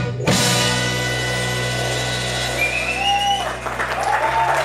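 A live band strikes its final chord, which rings out over a held bass note. From about three seconds in, the audience starts applauding and cheering.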